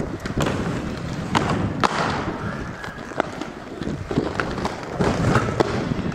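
Inline skate wheels rolling over rough concrete, a steady rumble broken by several sharp clacks and thuds.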